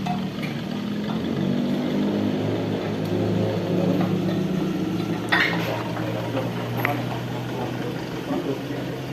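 An engine running steadily. Its pitch shifts over the first few seconds and then settles, with a sharp knock about five seconds in and a lighter click a second or so later.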